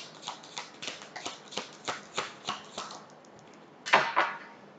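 A deck of tarot cards being shuffled by hand: a run of short slaps and flicks, about three or four a second, then a louder rustling burst about four seconds in.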